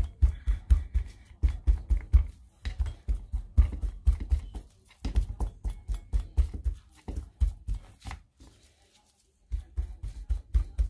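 Fork jabbed repeatedly through pork belly skin into a cutting board: rapid thuds, three or four a second, with a short pause about eight seconds in.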